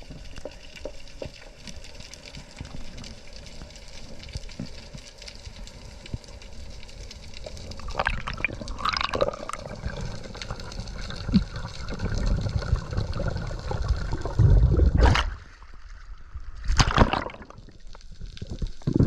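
Underwater sound around a diver: steady water noise with gurgling, and a few louder bursts of water and bubbles, the biggest near the end.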